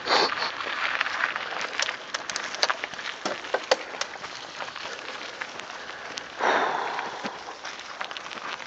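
Mountain bike tyres rolling over a gravel forest track and then a leaf-strewn dirt trail: a steady crunching hiss scattered with sharp clicks and rattles. It briefly gets louder at the very start and again about six and a half seconds in.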